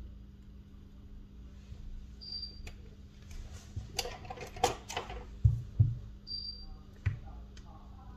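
Small clicks, rustling and a few dull knocks from tools and phone parts being handled during a smartphone teardown, over a steady low hum. A short high beep sounds twice, about two seconds in and again past six seconds.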